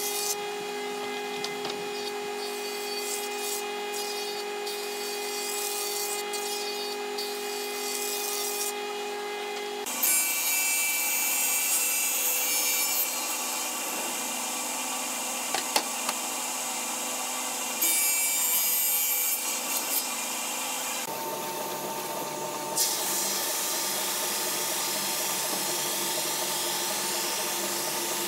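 Three woodworking machines, one after another. First a jointer's motor runs with a steady whine while a board edge is fed over the cutter. About ten seconds in comes a table saw ripping a board, with two louder spells of cutting, and from about two thirds through a wide belt sander runs with a steady hiss as a panel is fed through.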